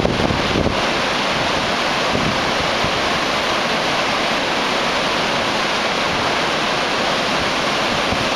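Iguazú Falls, a wide line of waterfalls plunging into the river, heard close up: a loud, steady rush of falling water.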